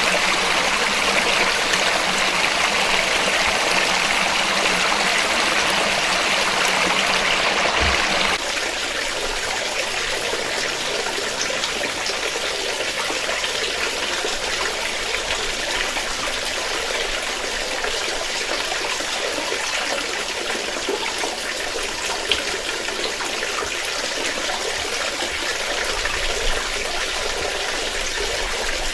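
Flowing water in a stream, a steady rush. About eight seconds in it cuts abruptly to a quieter, softer stretch of flowing water.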